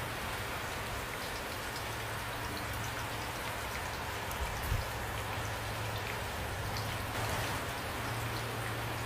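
Steady rain, with individual raindrops ticking as they land, under a low rumble. A single duller knock comes about four and a half seconds in.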